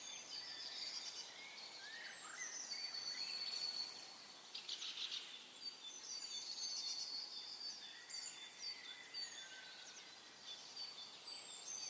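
Tropical rainforest ambience: many birds calling at once, with repeated high whistles, short rising and falling chirps, and a quick trill about five seconds in, over a steady hiss of insects.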